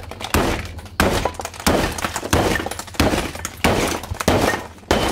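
A plastic Lightning McQueen toy car being smashed apart by a steady run of blows: about eight sharp hits, one every two-thirds of a second, each with a crack and clatter of breaking plastic.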